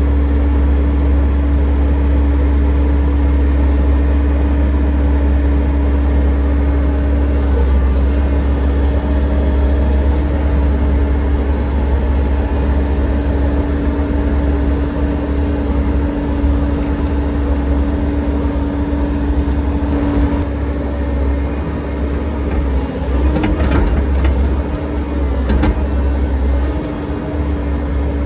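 Excavator's diesel engine running steadily, a constant low rumble with a steady hum above it; a few faint clicks and slight dips in the hum come near the end.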